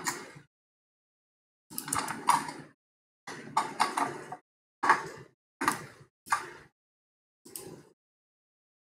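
A run of short clunks and clatters from a kettle and tea glasses being handled, about six in all, each starting sharply and dying away within half a second.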